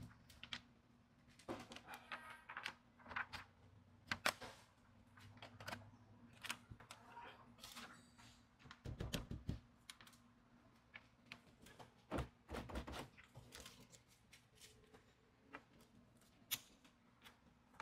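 Quiet, irregular clicks, taps and soft rustles of a sheet of nano ceramic window tint film being positioned and pressed by hand against a truck's rear door glass, with two short dull thumps around the middle.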